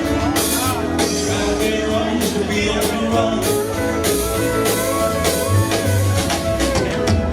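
Live country band playing the closing instrumental bars of a song, with a steady beat and held notes.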